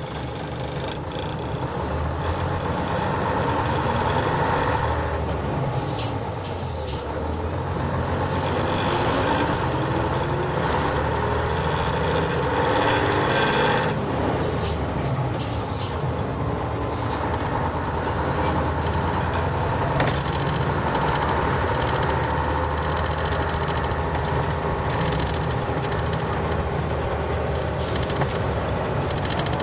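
Nissan Diesel 7E city bus's diesel engine running under way, heard from the cabin floor. The engine pitch rises as the bus gathers speed, falls back suddenly about halfway through, then holds steady, with a few brief sharp sounds over it.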